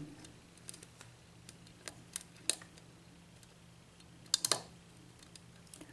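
Light metallic clicks of a lock pick working the pin stacks of a Sargent six-pin mortise cylinder during single-pin picking: a few scattered ticks, then a quick cluster of several clicks about four and a half seconds in.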